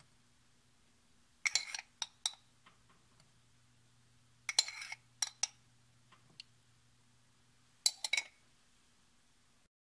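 A metal spoon clinking against hard kitchenware while oil is spooned into a frying pan, in three brief clusters of sharp clinks: about a second and a half in, near the middle, and near the end. A faint steady hum runs underneath.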